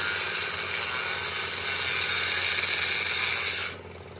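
A power tool working on metal: a steady hissing noise, heavy in the high end, that cuts off suddenly near the end.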